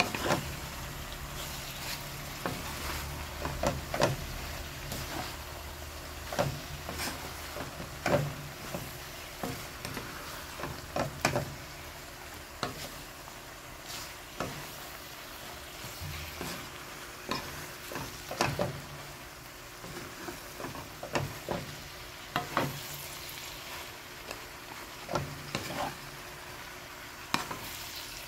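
Water spinach and pork sizzling in a frying pan while a wooden spatula stirs and tosses it, with irregular knocks and scrapes of the spatula against the pan over the steady sizzle.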